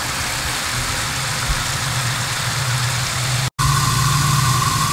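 Garden hose spray nozzle showering water into a plastic 5-gallon bucket, a steady hiss over a low hum. It cuts off abruptly about three and a half seconds in, and a steady mechanical hum with a higher whine carries on.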